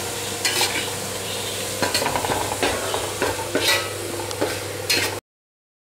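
Sliced onions, fried brown, sizzling in ghee in a stainless steel pan while a spatula stirs and scrapes them in repeated strokes. The sound cuts off suddenly near the end.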